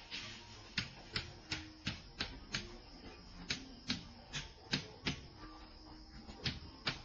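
Footsteps, sharp slapping steps about two or three a second, with two short pauses.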